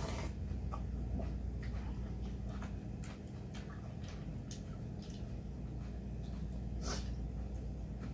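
Eating sounds: ramen broth slurped from a stainless steel bowl, with scattered small clicks and slurps of chopsticks and noodles. The louder slurps come at the start and about seven seconds in. A steady low hum runs underneath.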